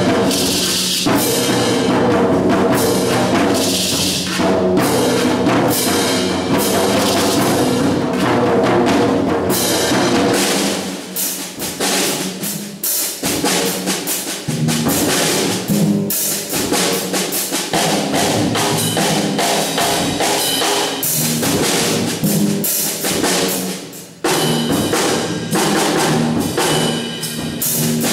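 Percussion ensemble playing a piece on drums, including timpani and concert bass drum, with dense strikes and some held pitched notes. It thins out and softens a little after ten seconds in, then builds again, with a brief drop just before a loud re-entry near the end.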